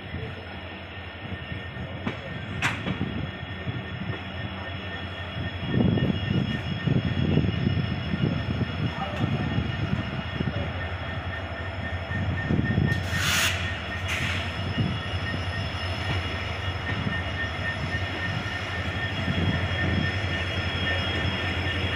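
Passenger train rolling into a station, heard from an open coach door: a steady low rumble and clatter of the wheels, with a faint high wheel squeal running under it. There is a sharp click about three seconds in and a short hiss a little past the middle.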